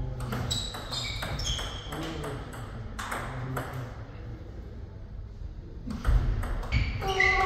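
Table tennis rally: the celluloid ball clicking sharply off the rackets and bouncing on the table, a run of quick ticks that is loudest near the end.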